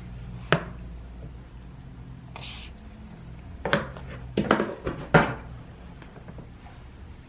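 A baby eating and drinking: a single sharp click, a short breathy hiss, then a quick run of sharp smacking and clicking sounds in the middle, over a low steady hum.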